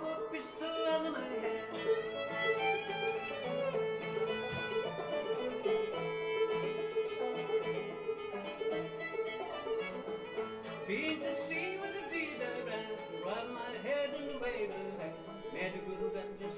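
Old-time string band playing a tune live, a fiddle carrying the melody over a steady held drone note.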